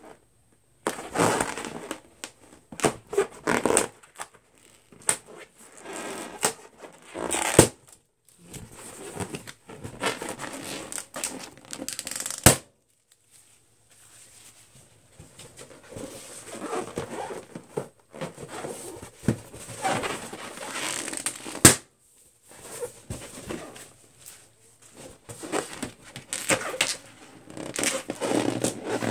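Fingernails scratching, picking and rubbing at inflated latex balloons, with a few sharp pops standing out as the loudest sounds.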